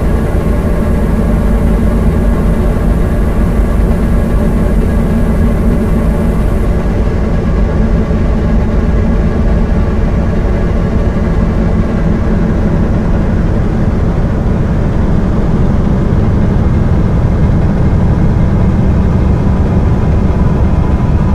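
Dark ambient electronic drone made with Maneco Labs Grone and a Mutable Instruments Clouds module: a loud, steady, dense low rumble layered with many held tones. A high hiss above it cuts off about seven seconds in.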